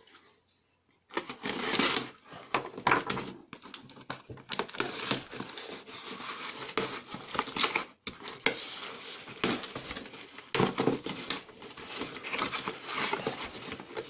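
A cardboard shipping box being torn open by hand: irregular crackling, ripping and rustling of cardboard, starting about a second in.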